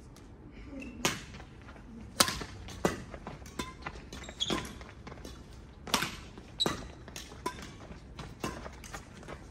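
Badminton rackets striking a shuttlecock in a doubles rally: sharp smacks about once a second, each ringing briefly in the large hall.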